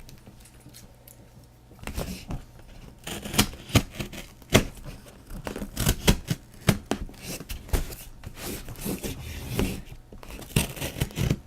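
A mail package being opened by hand: after a quiet start, a run of irregular sharp clicks, rips and crinkles of packaging.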